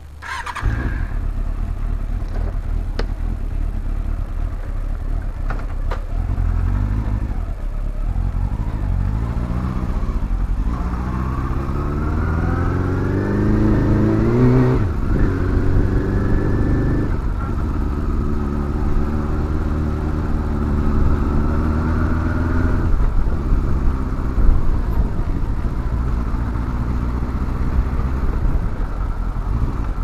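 Motorcycle engine heard from on the bike as it is ridden, getting loud about half a second in. Its pitch climbs steadily for several seconds as the bike accelerates, drops abruptly at an upshift about 15 seconds in, then runs steadily.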